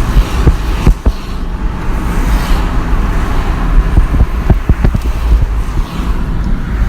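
Road traffic on a two-lane road: a continuous rumble of cars and other vehicles going by, with a few short knocks about a second in and again between about four and five seconds.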